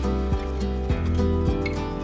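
Background music with a steady beat, a new note struck about twice a second over held tones.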